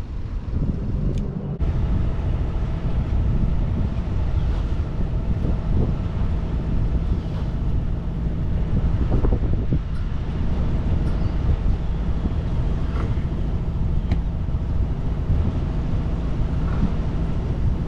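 A sailboat's auxiliary engine running steadily while motoring under way, with wind noise on the microphone.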